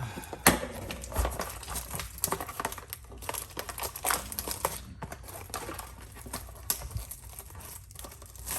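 Foil trading-card booster packs crinkling and rustling as they are handled, with many irregular crackles.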